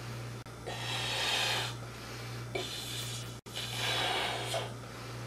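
Person blowing up a rubber balloon by mouth: two long breaths, each lasting about a second, over a steady low hum.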